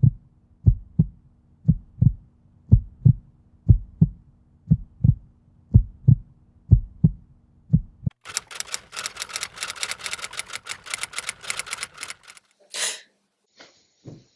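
Heartbeat sound effect: paired low thumps, lub-dub, about once a second. About eight seconds in it gives way to roughly four seconds of rapid, even clicking, then a single short burst.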